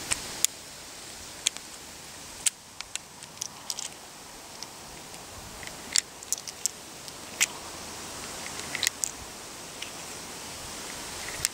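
An Iver Johnson top-break revolver in .38 S&W being handled and loaded: scattered light metallic clicks and taps as cartridges are pushed into the cylinder's chambers, over a steady background hiss.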